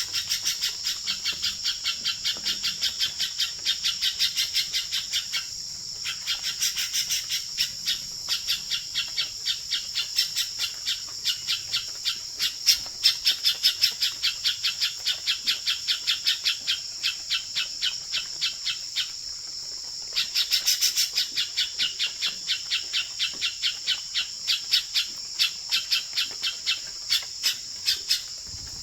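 Alarm call of the bird known in Vietnam as hoành hoạch: a long run of short, sharp notes repeated about three to four times a second, pausing briefly twice, over a steady high insect-like buzz.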